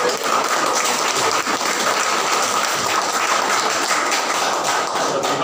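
A group of people clapping their hands, a dense steady patter of claps, with a faint steady high tone underneath.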